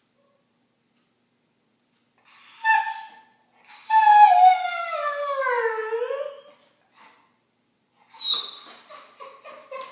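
Dog whining and howling: after a short whine comes one long howl that slides down in pitch, followed near the end by a run of short, broken whimpers.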